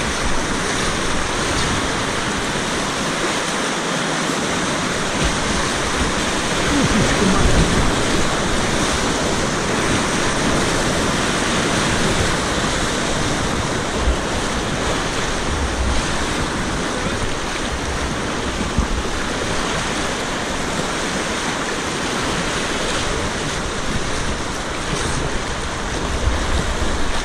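Whitewater rapids rushing steadily, heard close up from a kayak in the current, with occasional low gusts of wind buffeting the microphone.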